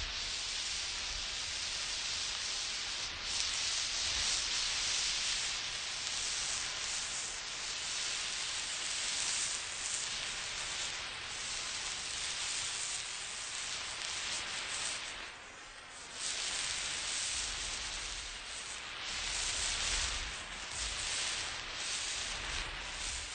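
Burning emergency flare giving a continuous fizzing hiss that swells and fades, dropping away briefly about two-thirds in.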